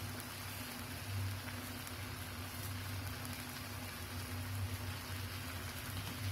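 Rendang spice sauce simmering in a wok over a gas flame, bubbling and sizzling steadily, with a low steady hum underneath.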